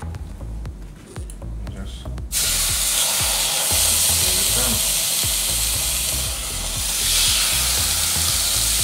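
Salmon fillet sizzling on the hot ridged plate of an electric contact grill. The steady sizzle starts suddenly about two seconds in, as the fish goes down on the plate.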